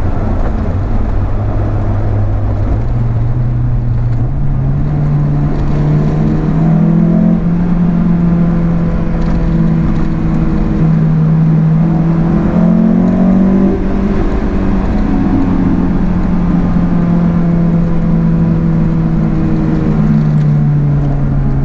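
Honda S2000's four-cylinder engine running under way, with road rumble. Its pitch climbs over the first few seconds, holds mostly steady with a brief rise in the middle, then drops near the end.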